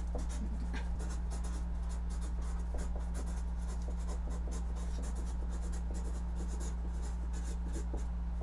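Handwriting on a large sheet of paper pinned to a wall: a pen scratching in quick strokes, several a second, with a steady low hum underneath.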